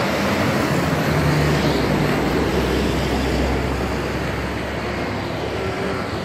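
Street traffic: a passing motor vehicle's engine, loudest a second or two in and then slowly fading, over steady road noise.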